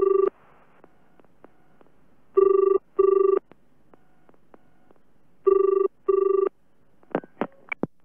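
Telephone ringing with the British-style double ring, 'brr-brr' pairs repeating about every three seconds. Near the end a few sharp clicks as the receiver is picked up.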